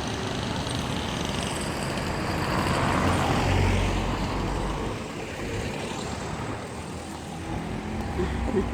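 Steady vehicle and traffic noise: a rumbling wash that swells to its loudest about three to four seconds in, then eases off.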